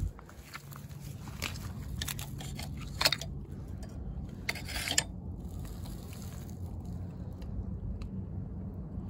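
Footsteps crunching on a stony shore, a handful of crunches in the first five seconds, with a steady low rumble underneath.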